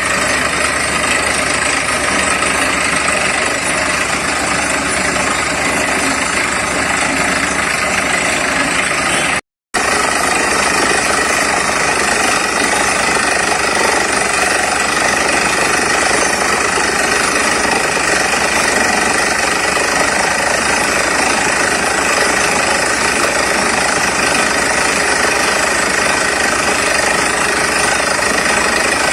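Borewell drilling rig and its air compressor running loud and steady while drilling, with a hammering rattle through the engine noise. The sound drops out for a moment about a third of the way through.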